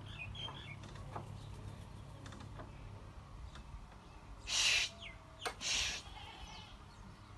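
House crows cawing: two harsh calls about a second apart, a little past halfway, over faint twittering and a low steady hum.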